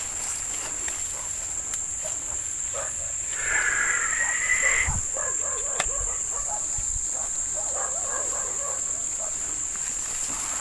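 Steady, high-pitched insect chorus, with a short warbling call about three and a half seconds in and a few scattered clicks and low thumps.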